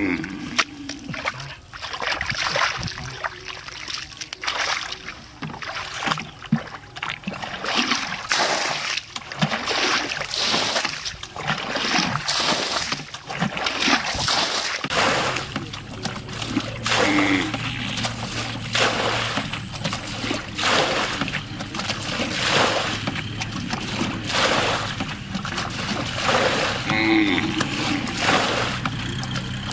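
Muddy water splashing again and again as a bucket bails it out of a shallow canal, about one throw a second.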